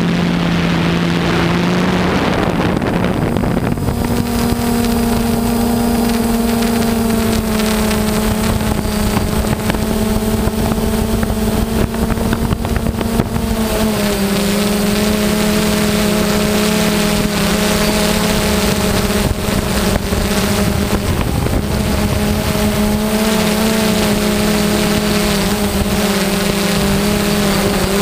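DJI Phantom quadcopter's electric motors and propellers buzzing steadily in flight, heard close up from the camera slung beneath it. The pitch steps up about four seconds in and drops slightly around halfway.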